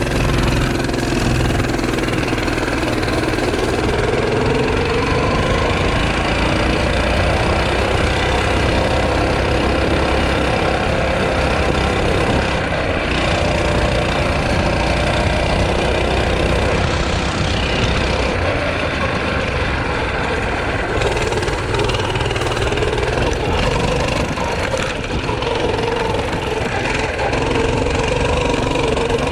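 Small engine of a Tote Gote trail motorbike running continuously under way, its pitch rising and falling as the throttle and speed change.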